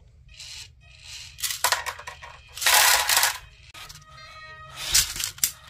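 Small river stones clattering in the bucket of a Maisto Bobcat T590 RC tracked skid steer in several short bursts, the longest about a third of the way in. Between them there is a steady whine from its small electric servos and motors.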